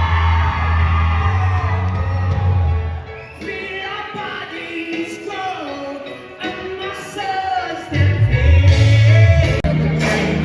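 Live pop band playing with a singer: the heavy bass and drums drop out about three seconds in, leaving the voice over lighter backing, and the full band comes back in near the end.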